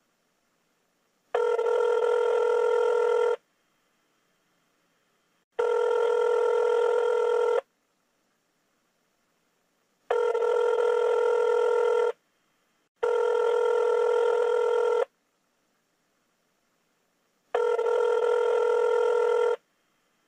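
Telephone ringing tone as heard by the caller: a steady tone about two seconds long, repeated five times with silent pauses between, and the call goes unanswered.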